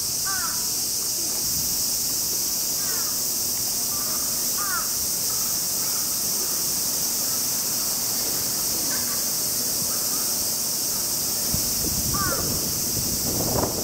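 Steady, high-pitched drone of an insect chorus, typical of summer cicadas, with short bird calls repeating every second or two. A brief burst of rustling noise comes near the end.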